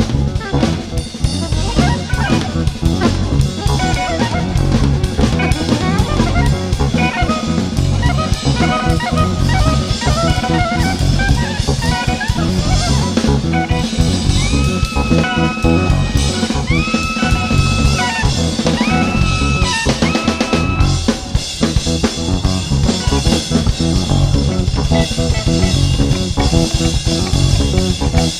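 Live jazz-fusion band playing: a drum kit with busy snare, bass drum and cymbal work under a guitar line. About halfway through, the guitar holds a few long sustained notes before the playing grows busy again.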